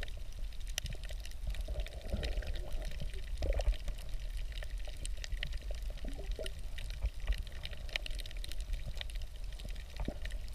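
Water heard through a submerged camera: a steady low, muffled rumble of moving water with many small scattered clicks and crackles.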